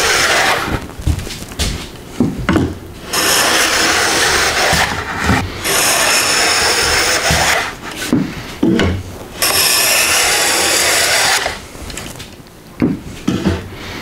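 A plane fitted with a 90-degree fence shaving a rough wooden edge smooth in a series of long strokes, each about two seconds, with short pauses and light knocks between them.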